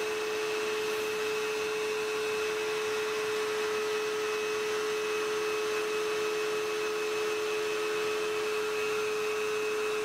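Rotary tool in a drill-press stand running at a steady speed, a steady whine over a hiss, as a fine bit drills holes in a small etched circuit board.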